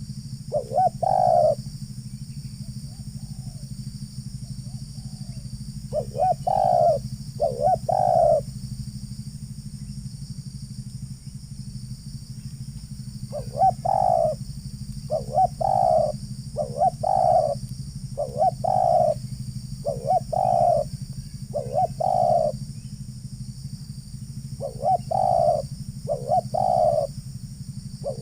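Spotted doves cooing, repeated deep notes in short groups of two or three and in one longer run of about one note a second, over a steady low hum.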